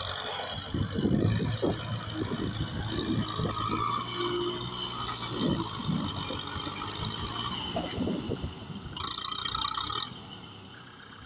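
Kubota tractor's engine running, with mechanical rattling and uneven low surges; it turns quieter about ten seconds in.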